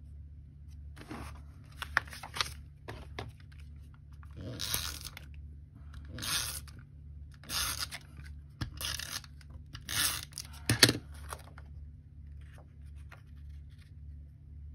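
Tombow Mono tape adhesive runner rolled across cardstock in about ten short rasping strokes, with paper pieces handled and pressed down between them, and one sharp click about three quarters of the way through.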